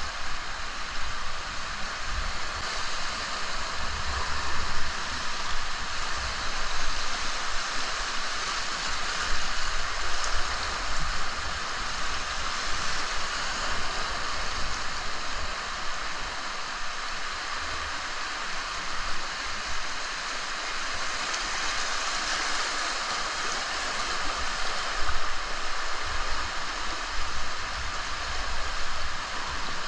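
Steady rush of river whitewater, an even continuous hiss with scattered low bumps underneath.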